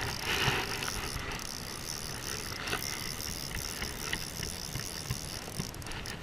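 Fly reel's click-pawl ratchet buzzing steadily as line is wound in on a hooked fish, over a constant outdoor hiss.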